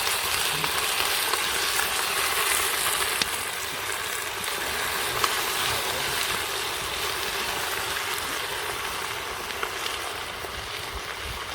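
Marinated chicken pieces sizzling in a pot on a grill over a campfire: a steady hiss with small scattered crackles, easing slightly near the end.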